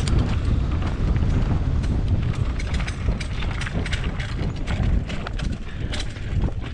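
Mountain bike riding down a dirt flow trail: wind buffets the microphone with a deep rumble, and the bike rattles over the bumps with many irregular sharp ticks and knocks.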